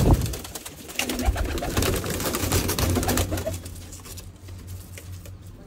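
Domestic pigeons cooing in an enclosed loft, with scattered clicks and rustles throughout. It is louder for the first three seconds or so, then quieter.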